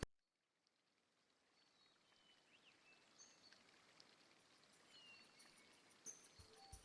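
Near silence after the music cuts off, with faint outdoor ambience fading in and a few faint, short high chirps. A music beat comes back near the end.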